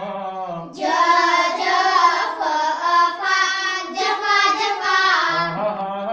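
A group of children chanting a recitation in unison, in a sing-song rhythm, with a man's lower voice leading briefly at the start and again near the end: a call-and-response reading drill.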